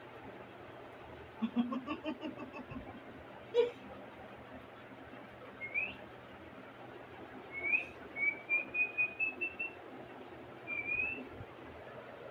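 High whistled chirps: a short run of falling notes near the start, then several short rising whistles and a quick string of notes climbing slightly in pitch, with one sharp knock about three and a half seconds in.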